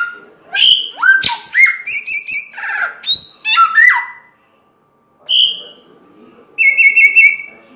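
A samyong bird singing loudly: a quick run of clear whistled notes, many sliding upward, then a pause, one short note, and a wavering trilled note near the end.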